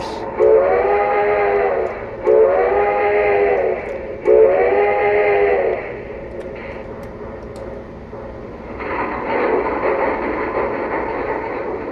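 Three steam whistle blasts from a QSI QS-3000 sound system in an O scale model steam locomotive, sent as a signal to arm its coupler slack action sound sequence. About nine seconds in, a loud steam hiss follows as the triggered sequence plays.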